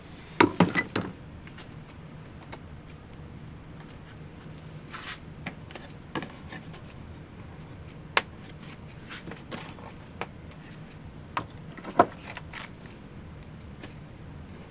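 A quick run of sharp metallic clinks, then scattered single clicks and taps as small tools and parts are handled during nail removal on a wicker basket, over a steady low hum.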